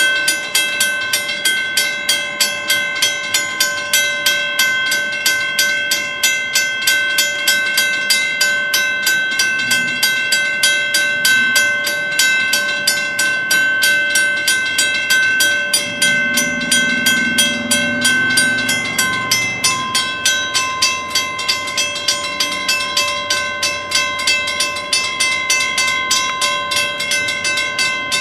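Railroad crossing warning bell ringing in a fast, steady rhythm while the gates are down and the lights are flashing, the signal that a train is approaching.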